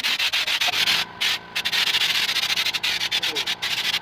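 Air-fed texture spray gun hissing as it blasts a thick Flexibond-and-cement texture coat, cut off briefly twice just after a second in.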